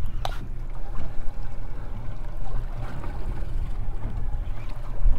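Low, fluctuating rumble of wind and water around a small boat drifting at sea, with one sharp click about a third of a second in.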